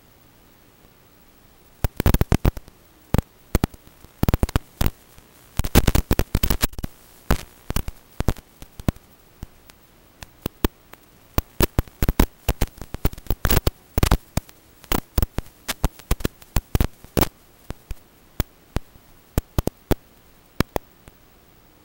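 Crackling static on the audio track of Skyzone Cobra X FPV goggles recording an analog drone video feed: irregular clusters of sharp clicks and pops over a faint hiss, starting about two seconds in. Such crackle is typical of a weak analog signal, here received with the goggles' antennas left off.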